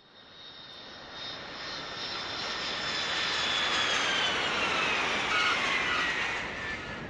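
A jet airliner passing by: the engine noise swells to a peak, then fades, while a high whine falls slowly in pitch as it goes past.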